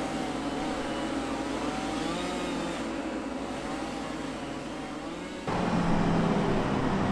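Engine running steadily with slight rises and falls in pitch, then an abrupt cut about five and a half seconds in to a louder engine sound.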